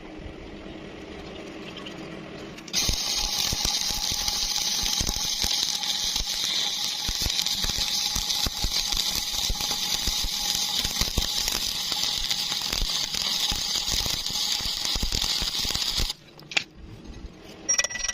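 Electric arc welding: a steady crackling sizzle that strikes up about three seconds in and cuts off abruptly near the end, as a weld bead is run on steel.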